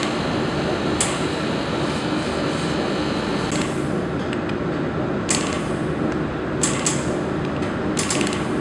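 Handheld laser welder tacking a steel corner joint: about five short, sharp crackling bursts as the laser fires each tack spot, over a steady background hum.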